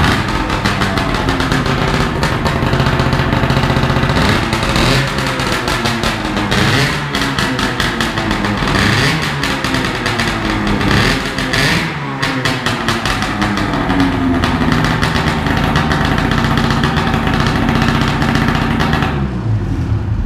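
Vintage Yamaha snowmobile's two-stroke engine running and being revved, its pitch rising and falling repeatedly; it is shut off right at the end.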